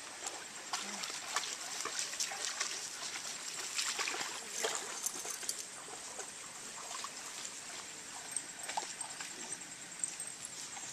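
Shallow stream trickling, with scattered small splashes and rustles from dogs wading and moving about at the water's edge.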